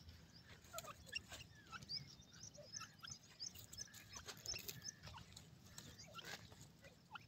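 Grey francolins giving soft, high peeping chirps, many short calls scattered throughout, some with quick pitch slides, with a soft scuff about six seconds in.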